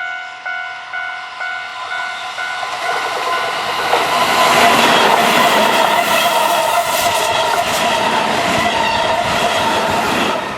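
A Japanese level-crossing alarm rings with about two strikes a second, and a Keihan 7000 series electric train passes over the crossing. The train's wheel and rail noise builds from about two and a half seconds in and is loudest from about four seconds on, drowning the bell.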